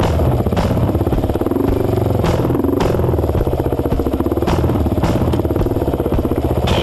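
Four-stroke dirt bike engine running at steady revs while riding a rough trail, with several sharp knocks and rattles as the bike hits rocks and ruts.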